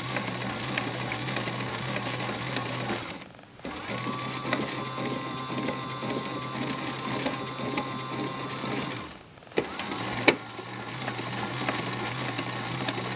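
Battery-powered AEG Electrolux Lavamat toy washing machine running its wash cycle: a small motor hums and the drum turns with light clicking and rattling. The motor stops briefly twice, about three seconds in and about nine seconds in, with a sharp click just after the second stop.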